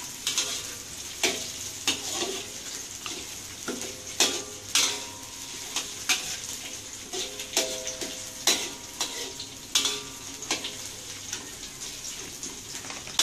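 Metal spatula scraping and knocking against a metal wok in irregular strokes, each leaving a short metallic ring, over a steady sizzle of sliced onion and spring onion stir-frying.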